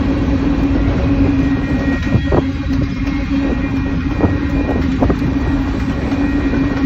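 Freight train of covered hopper cars rolling past: a steady loud rumble of steel wheels on rail, with a few sharp clacks of wheels crossing rail joints between about two and five seconds in.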